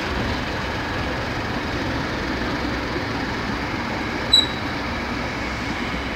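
Freight train wagons rolling past close by: a steady rumble of steel wheels on rail. About four seconds in there is one short, high squeal.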